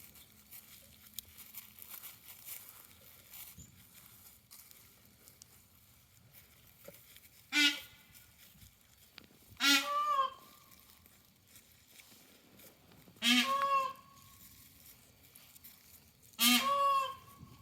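Domestic bird honking in complaint: four loud honks a few seconds apart, each about half a second long.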